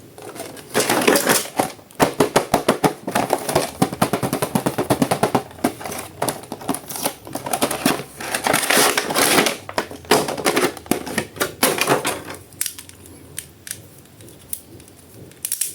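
Rapid, irregular crackling and clicking of plastic packaging being handled up close while a toy action figure is unboxed. It is dense for most of the stretch, then thins to scattered clicks, with a short flurry near the end.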